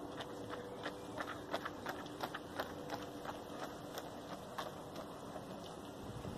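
Runners' footfalls on the road course, heard as irregular light taps, a few a second, with a faint steady hum under the first four seconds.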